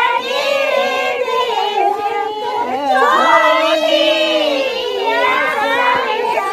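A group of high voices, mostly women's, singing together, a Tharu Jitiya folk song (jhamta). Several voices overlap in loose unison with long held notes.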